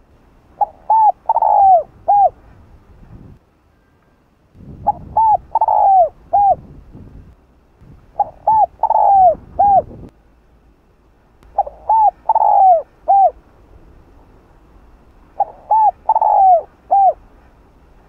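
Spotted dove cooing: five repeated phrases, one every three to four seconds. Each phrase has two short coos, a longer drawn-out coo and a final short one, and each note falls slightly in pitch.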